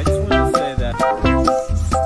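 Background music: a tune of short, quick notes over a steady bass line.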